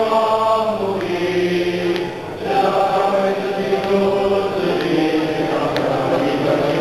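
A large congregation of men singing a hymn together, many voices holding long notes in slow phrases, with a short break about two seconds in.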